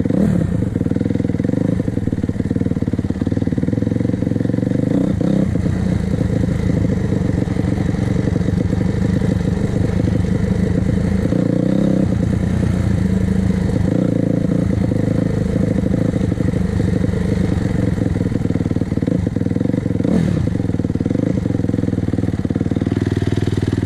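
2006 Honda CRF250R's 250 cc four-stroke single-cylinder engine running steadily while the bike is ridden, its pitch rising and falling only a little.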